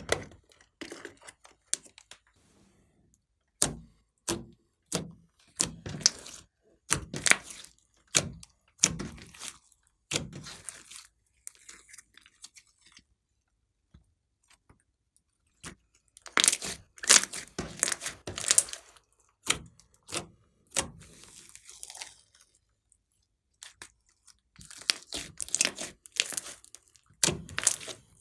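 Glossy slime being pulled, peeled and kneaded by hand: irregular wet clicks, crackles and small pops in clusters, with a few short quiet pauses.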